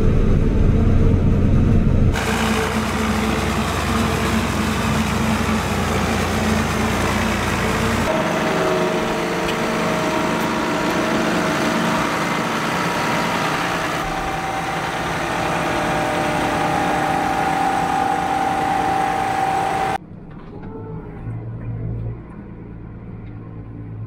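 Heavy farm machinery running during maize chopping: forage harvester and tractor engines, in several shots that cut off abruptly every few seconds. The last shot is much quieter, with a low engine hum.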